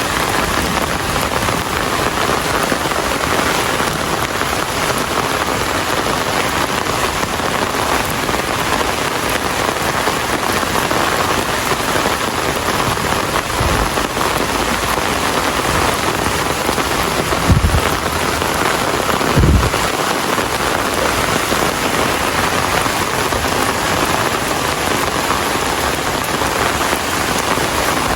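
Steady rain falling and pattering on surfaces, a dense even hiss. A few brief low thumps come through about halfway in.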